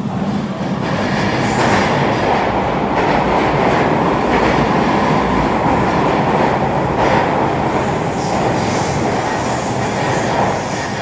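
HO scale model freight cars rolling along the track and over a truss bridge: a steady rolling rumble with scattered clicks of wheels over rail joints, growing louder about a second in and easing near the end.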